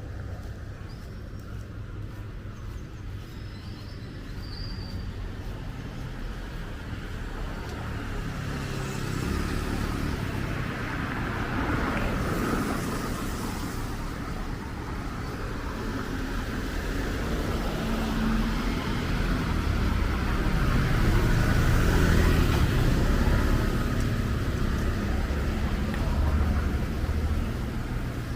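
Road traffic going by: vehicles passing with a low engine rumble and road noise, swelling about ten seconds in and loudest a little after the middle.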